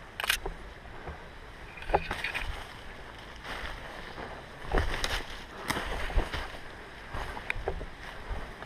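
Irregular rustling and crunching, broken by scattered sharp snaps and knocks, about half a dozen of them across several seconds.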